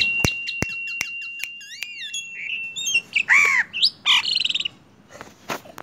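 Common myna calling: a long, steady whistle laced with clicks and wavering whistled notes, then, about three seconds in, harsh squawks and a quick rattling call.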